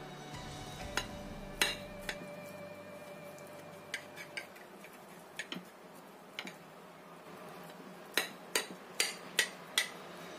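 Kitchen knife cutting an egg and long-bean omelette on a plate, the blade clicking sharply against the plate with each downward cut. Near the end come five quick clicks, about two and a half a second.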